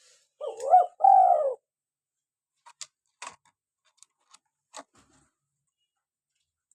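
Spotted dove (tekukur) giving a two-part coo near the start, followed by several short, sharp clicks.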